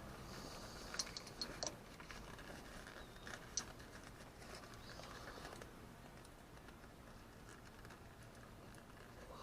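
Faint scattered clicks and rustles of a shift knob being handled and worked onto a car's gear shifter, busiest in the first half and thinning out after that.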